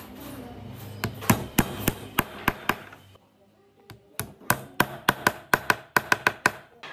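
Sharp taps on wooden dowels being seated in glued holes in a pine tabletop. About seven evenly spaced knocks come first, then after a short pause a quicker run of about fifteen.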